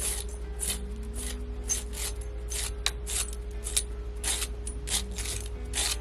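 Crunching steps in snow, irregular, about two a second, over a steady low electrical hum.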